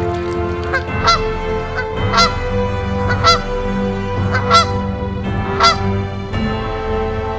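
Geese honking: a short call about once a second, some doubled, over background music with long held notes.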